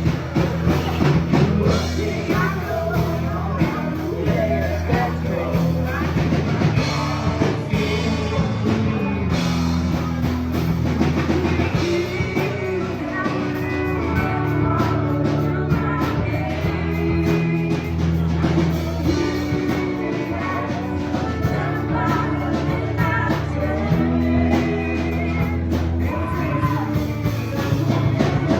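Rock song with singing, drums and guitar.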